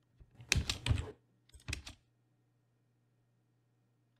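Computer keyboard keys being pressed: a quick cluster of clacks about half a second in and a shorter one just before two seconds in.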